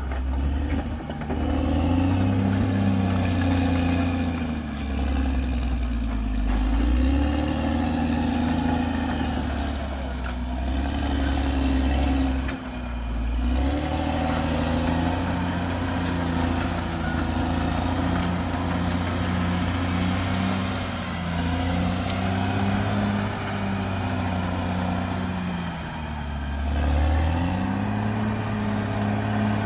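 CAT D6R XL bulldozer's diesel engine working, its pitch rising and falling several times.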